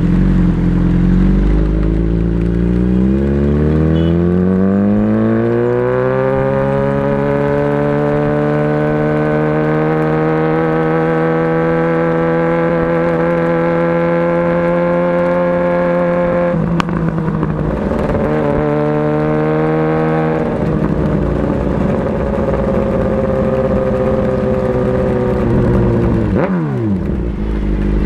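Motorcycle engine under way: it accelerates with pitch climbing for the first several seconds, then holds a steady pitch. There is a rougher, clattering break about two-thirds of the way through before it settles again, and near the end the pitch drops sharply as it slows.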